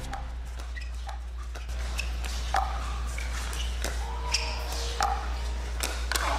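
Pickleball paddles striking a hard plastic ball in a fast rally at the net: a string of sharp, hollow pops, about two a second.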